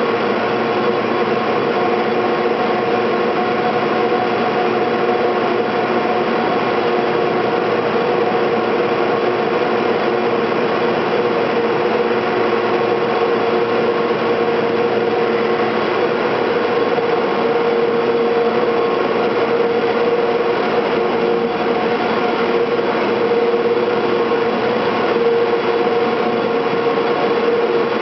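Steady drone of the cable car powerhouse's winding machinery, the motors and large sheaves that haul the street cables, with a constant whine held on one pitch over a mechanical rumble.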